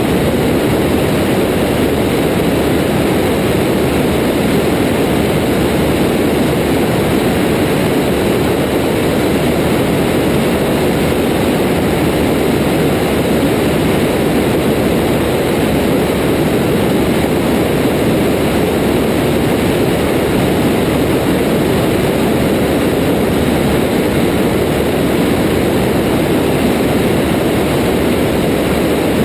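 Cessna 172's piston engine and propeller in flight: a loud, steady drone that holds level throughout, with a hiss of rushing air above it.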